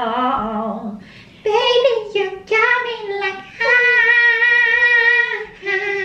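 A young woman singing unaccompanied in several short phrases, ending on a long held note near the end.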